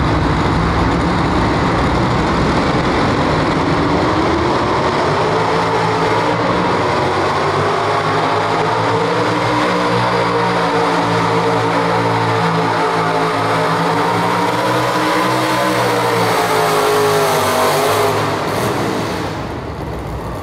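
Pro Street two-wheel-drive pulling truck's engine running hard under load during a pull. Its pitch climbs over the first several seconds, holds high, then falls away near the end as the engine comes off.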